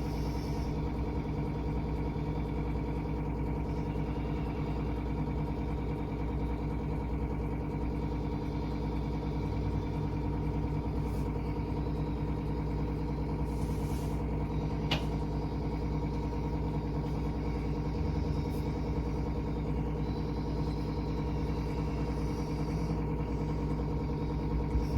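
A steady, unchanging low hum, with a single sharp click about fifteen seconds in.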